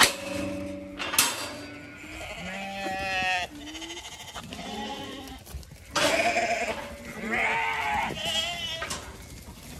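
Zwartbles lambs and hoggets bleating repeatedly, several calls overlapping, as hungry sheep calling for their feed. A metal field gate's latch clanks twice in the first second or so.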